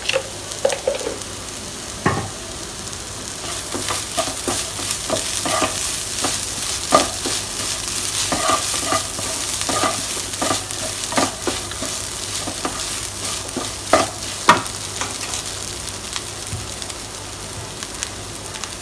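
A spatula stirring and scraping flaked fish and onions in a nonstick frying pan over a steady sizzle of frying, with scattered knocks of the spatula against the pan, the sharpest about 14 seconds in.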